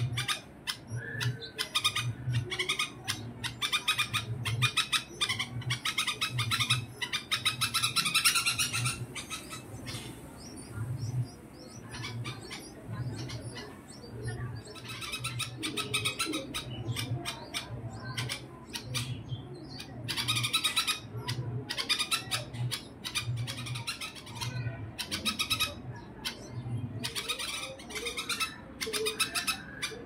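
Red-vented bulbuls calling at the nest: bouts of rapid, sharp chirps repeated many times a second, with a lull of a few seconds about a third of the way in.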